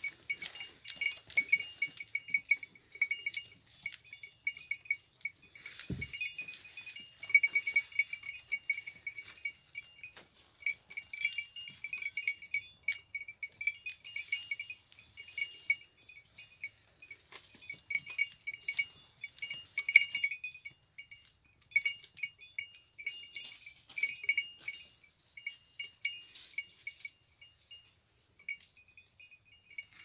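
Small metal bell on a goat's collar clanking irregularly as the goat moves and browses. There is a single low thump about six seconds in.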